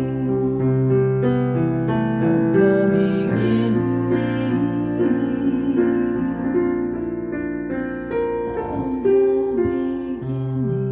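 Keyboard playing an instrumental passage of held chords over a low sustained bass note, the chords changing every second or so; the bass note drops out briefly near the end.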